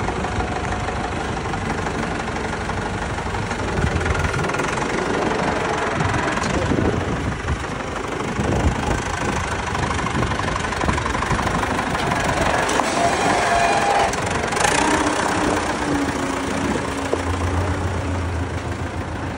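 Diesel engine of an old tractor carrying an IFRON 204D front loader, running steadily, with its pitch shifting now and then as the loader works.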